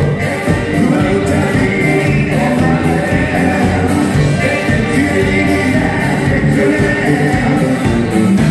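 Live band music: several vocalists singing together at microphones over electric guitar, bass guitar and drums, with a steady beat.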